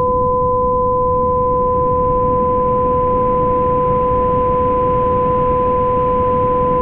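Homemade binaural-beat track generated in Audacity: two steady pure tones, one an octave above the other, held unchanged over a constant bed of low rushing noise.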